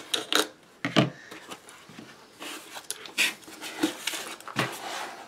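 Scissors cutting the tape on a cardboard mailer box, with several sharp snips and clicks, then the cardboard box being handled and pried open with scraping rustles and knocks.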